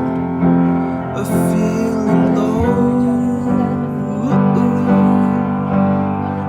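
Background music: a slow pop song with piano and a sung vocal line.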